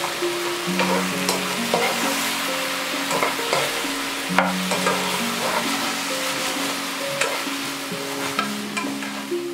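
Fried eggplant and vegetable fritters sizzling in kkanpung sauce in a hot nonstick pan while a wooden spatula stirs and tosses them, giving frequent short clicks and scrapes against the pan over a steady sizzle.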